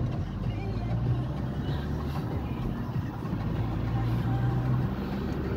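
Inside a moving car: a steady low hum of engine and tyre road noise while driving along.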